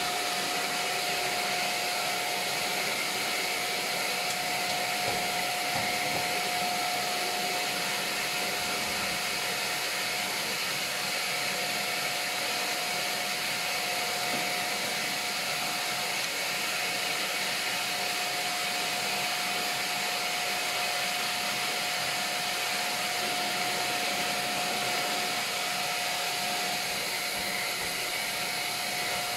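Vacuum cleaner running steadily with a constant whine, its hose nozzle being drawn over fabric curtains.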